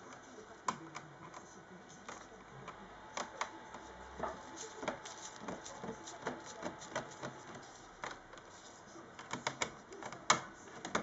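Faint, irregular small clicks and taps, several a second, from hands handling a laptop screen panel and its metal frame, with a louder cluster about ten seconds in.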